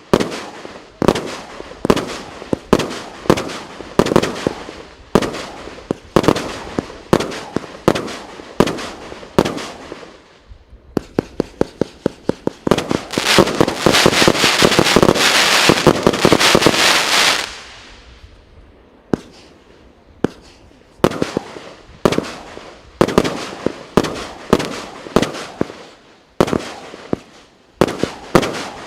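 Multi-shot consumer fireworks battery firing: a string of sharp bangs about one or two a second, quickening about a third of the way in into a dense, rapid volley that runs for several seconds. After a short lull the single shots resume at a steady pace.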